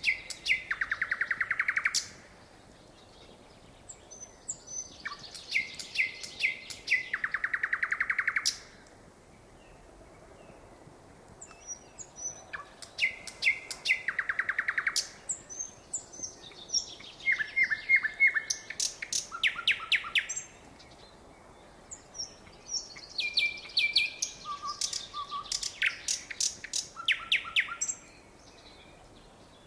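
Nightingale singing in separate phrases a few seconds apart, about five of them. Each phrase is built of whistled notes and fast repeated notes, and several end in a rapid rattling trill.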